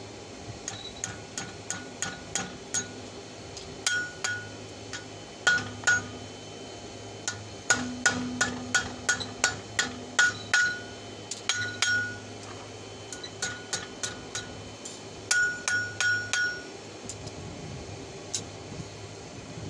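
Hand hammer striking red-hot steel on an anvil, forging the open end of an old wrench into fork tines. The blows come in quick runs of several strikes with short pauses between, each leaving a brief clear metallic ring from the anvil. The hammering stops near the end, leaving a steady low hum.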